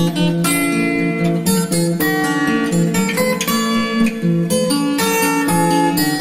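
Background music: acoustic guitar playing a run of plucked notes at a steady pace.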